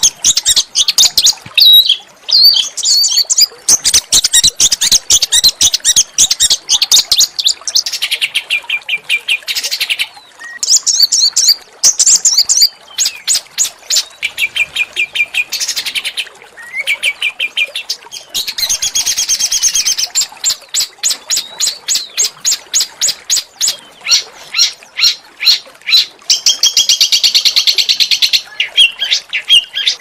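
Small songbird singing a fast, harsh chattering song of rapidly repeated high notes and trills, phrase after phrase with brief pauses between them.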